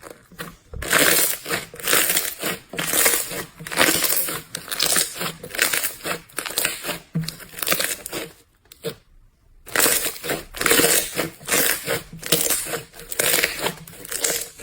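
Slime being squeezed and pressed by hand: a run of crunching squishes, about two a second, breaking off for about a second around two-thirds of the way through before carrying on.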